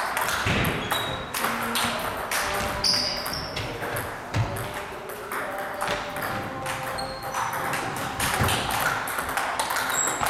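Table tennis rally: the ball clicking off the bats and the table top in quick, irregular succession.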